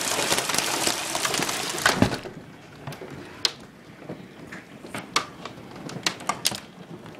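Ping-pong-ball-sized hail pelting the ground and roofs in a dense, loud clatter. About two seconds in there is a sharp thump, after which the sound drops abruptly to a much quieter patter with scattered sharp ticks of individual hailstones striking.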